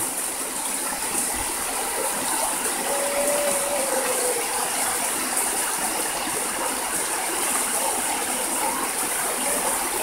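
Steady rush of the Majaceite river's water flowing over rocks.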